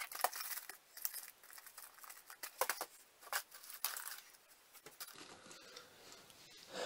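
Cardboard panels handled and packing tape pressed down on them: a quick run of crinkling, rustling and light tapping, dying down after about five seconds.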